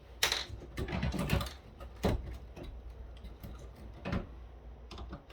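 Plastic housing and parts of a cordless phone base station clicking and knocking as they are handled and pried apart: a handful of separate sharp knocks, the loudest about two seconds in.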